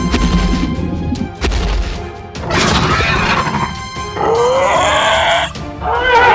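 Background music, then gliding, pitched cries laid over it from about two and a half seconds in, three times.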